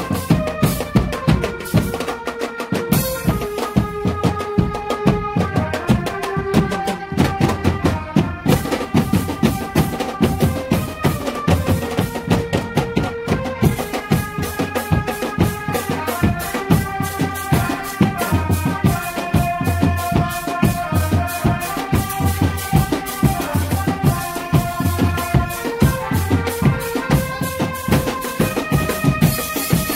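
Traditional drum-band music for a barongan ape dance: bass drums and other drums beating fast and steadily under a melody of held notes that step up and down.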